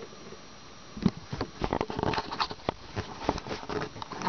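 Close-up handling noise: irregular rustles, scuffs and light clicks from hands on the camera and the plastic toy house, starting about a second in.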